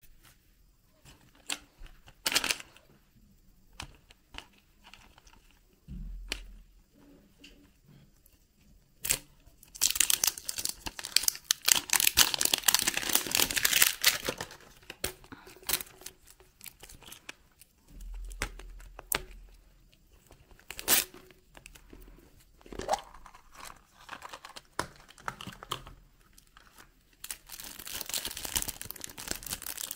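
Hands unboxing surprise-egg toys: a plastic egg and a paper wrapper being handled and torn open, with small sharp clicks and taps throughout. Dense crinkling and tearing runs for about four seconds a third of the way in, and again near the end.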